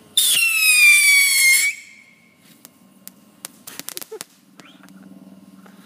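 Whistling bottle rocket firing: a loud whistle lasting about a second and a half, its pitch falling slightly before it cuts off, followed by a scatter of sharp pops and crackles.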